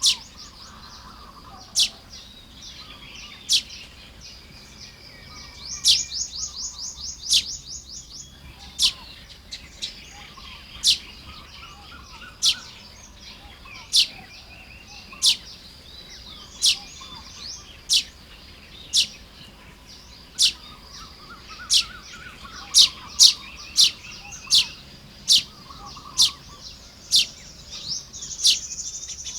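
Baya weavers calling while building nests. Sharp, high chips come about every second and a half, with a fast chattering run about six seconds in and a wheezy buzz near the end, over softer twittering.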